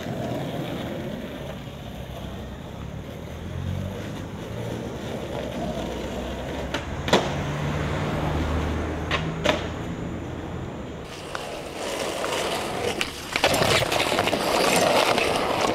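Skateboard wheels rolling over pavement, with a sharp clack of the board about seven seconds in, two more a couple of seconds later, and a run of knocks and rougher rolling in the last few seconds.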